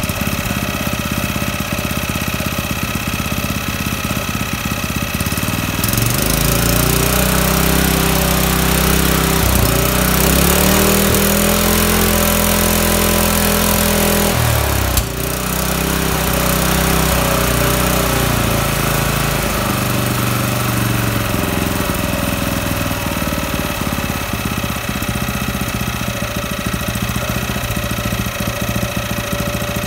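Freshly rebuilt Honda GX160 single-cylinder four-stroke engine running without its pump, revved up and down from about six seconds in, with a sharp click about fifteen seconds in, then settling back to a lower speed from about twenty seconds in. Its low-speed idle is not yet set and still needs a governor adjustment.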